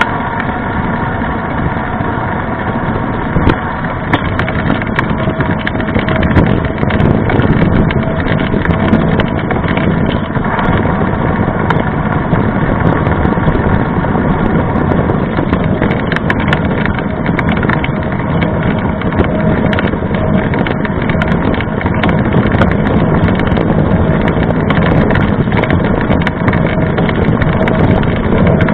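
Mountain-bike tyre rolling fast on asphalt: steady road hum and rumble with a faint whine from the tread.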